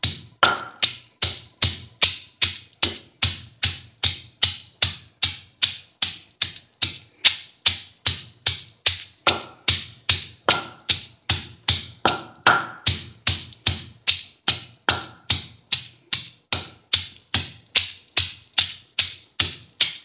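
Wooden pestle pounding chopped radish pods (mongray) in a stone mortar. The strokes are sharp and evenly paced at nearly three a second. The pods are being lightly crushed so their water can be squeezed out.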